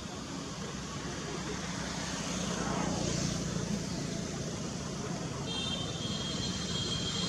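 Steady vehicle traffic noise, swelling a little midway. About five and a half seconds in, a steady high-pitched tone joins it.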